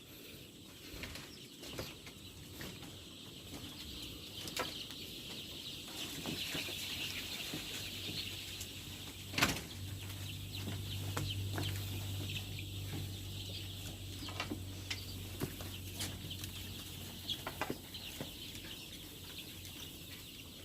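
A flock of young chicks peeping together in a brooding shed. Scattered sharp clicks and knocks run through it, the loudest about nine seconds in, and a low steady hum comes in through the middle stretch.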